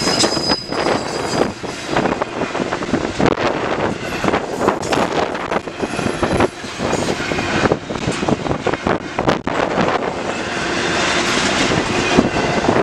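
CN intermodal freight train passing close by, with the rattle and clatter of wheels over the rail and wind noise on the microphone.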